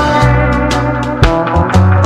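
Background music with a steady beat, bass line and sustained instrumental notes.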